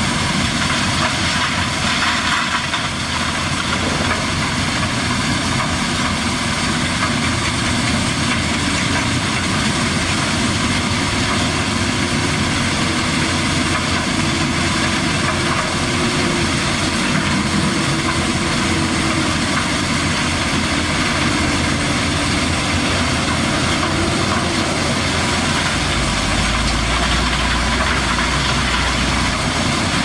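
Heavy machinery running steadily: a Kobelco tracked excavator's diesel engine working as it digs, amid the noise of a gravel-screening plant. A deeper low rumble swells for a few seconds near the end.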